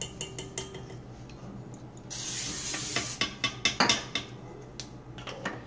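Wire whisk, a stand mixer's whip attachment worked by hand, stirring cake batter and clicking irregularly against the stainless steel mixing bowl. About two seconds in there is a hiss lasting about a second.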